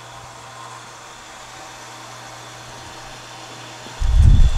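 Small electric overhead hoist motor running with a steady low hum as it lifts a load out of a parts-washer tank. About four seconds in, a brief, much louder low thump.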